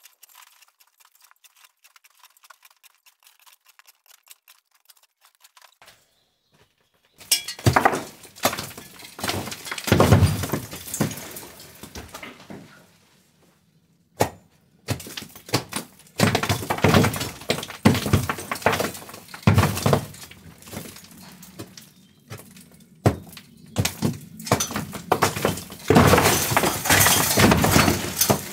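Brick and masonry rubble clattering during demolition, with many hard knocks and clinks. It starts suddenly after a quiet stretch, with short lulls in between.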